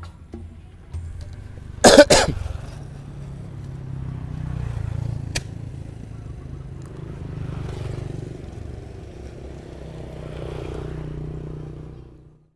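Motor traffic on the road alongside: a steady low rumble that swells and fades as vehicles go by. A loud, sharp double burst comes about two seconds in and a single click a few seconds later.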